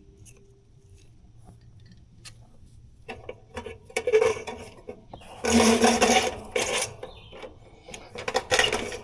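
Rubbing, scraping and clicking handling noises from hands working on parts of an outdoor HVAC unit while it is being wired in, starting a few seconds in and loudest in the middle.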